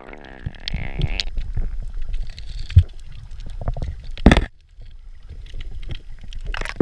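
Muffled underwater noise picked up by a freediving camera: a low rumble with scattered knocks, and one sharp, loud knock a little past four seconds in.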